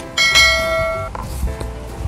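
A bright bell chime rings about a second and then dies away, in the style of a notification-bell sound effect, over soft background music.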